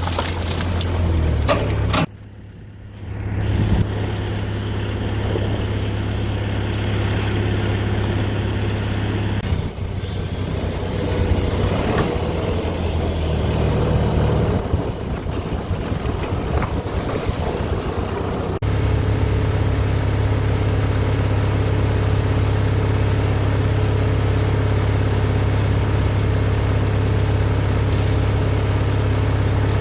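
Engine of a logging machine running steadily at a low pitch. The sound cuts off abruptly about two seconds in and resumes, then changes suddenly near eighteen seconds to a different steady engine note.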